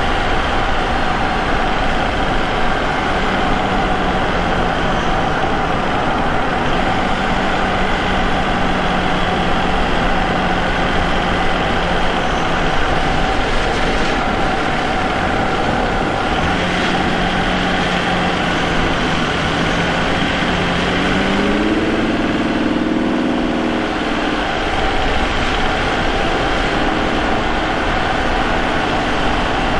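Vauxhall Omega's 3.2-litre 24-valve V6 engine running on the road, picked up by a microphone in the engine bay beside the K&N air intake, under steady road noise. About two-thirds of the way through, the engine note climbs in pitch, dips briefly, then settles again.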